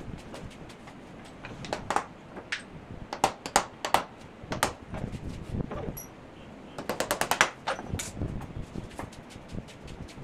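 Hammer tapping nails into a wooden chair frame: sharp strikes, some single and some in quick runs of several taps, with the longest, loudest run about seven seconds in.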